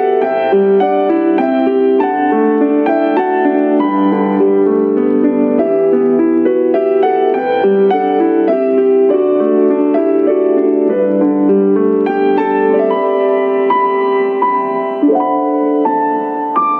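Instrumental background music: a gentle piano melody played as a steady run of notes, with no singing.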